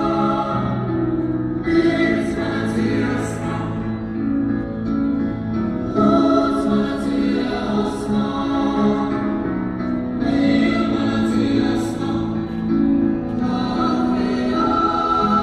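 Choral music: a choir singing slow, long-held chords, with a new phrase swelling in about every four seconds.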